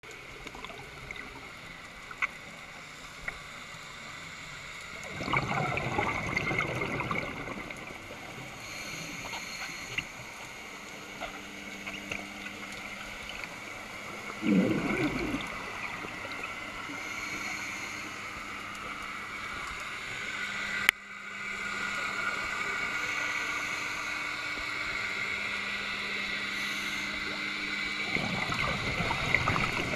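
Scuba diver's exhaled bubbles rushing out of the regulator, three times: about five seconds in, around the middle and near the end. Underneath is a steady underwater hum with a high whine.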